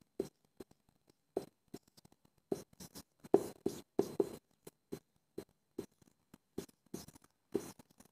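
Marker pen writing on a whiteboard: a run of short, irregular strokes and taps as letters are drawn.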